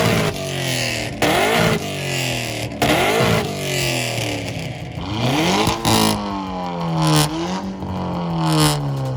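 Car engine revved hard through a loud exhaust, several times in a row: each blip rises sharply in pitch and falls back toward idle.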